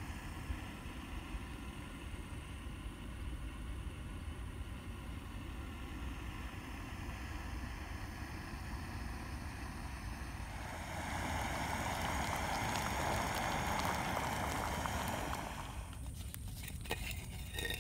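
Steady low outdoor rumble with wind on the microphone. A louder rushing noise swells in for about five seconds in the second half and then fades. A few sharp clicks and knocks follow near the end.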